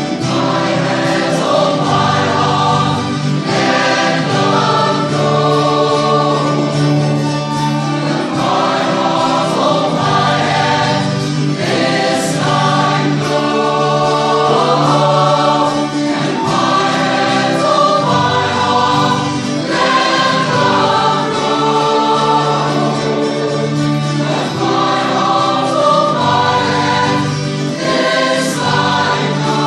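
Choral music: a choir singing sustained, slow-moving harmonies.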